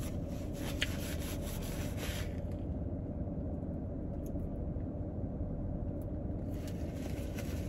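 Steady low hum inside a car, with faint rustling of paper napkins and a light click about a second in.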